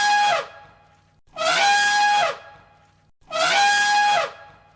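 Elephant trumpeting: loud, brassy calls repeated three times about two seconds apart, each lasting about a second, the first ending about half a second in.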